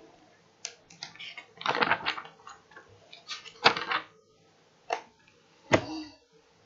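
A run of sharp clicks and knocks at uneven intervals, some in quick clusters, the loudest about a third of the way in and about a second before the end.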